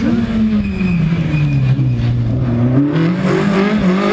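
Rally car engine running hard as the car passes, its note falling steadily for about two and a half seconds, then rising again as it accelerates.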